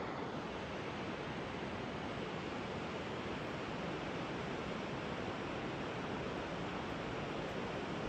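A river rushing: a steady, even noise that does not change.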